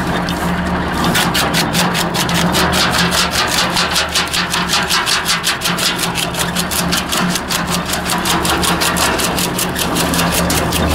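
Tractor PTO-driven wood chipper chipping branches: a rapid, even clatter of cutting cracks, several a second, begins about a second in over the steady hum of the tractor engine and chipper.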